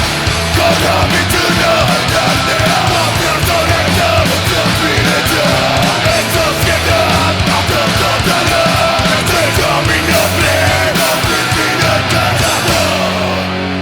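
Punk rock band playing loud, with distorted guitars and drums. Near the end the drums stop and a chord is left ringing.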